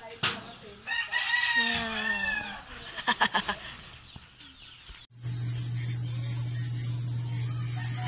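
A rooster crows once, about two seconds long, followed by a quick run of clucks. After a sudden cut about five seconds in, an egg incubator's fan runs with a steady hum and hiss, louder than the crow.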